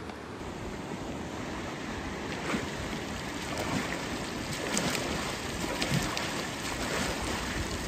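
Water splashing as a man slaps the river surface with his hands over and over, the splashes starting about two and a half seconds in, over the steady rush of a flowing river.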